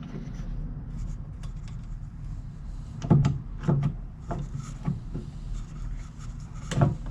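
A part being pulled loose from a Craftsman metal lathe's carriage by hand: light rubbing and scraping, then several sharp knocks and clunks of the parts from about three seconds in, over a steady low hum.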